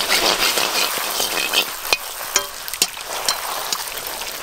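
Fuchka (pani puri shells) sizzling in deep hot oil in an iron wok as they puff up, stirred and splashed with a perforated metal skimmer. A steady sizzle with frequent sharp clicks and pops.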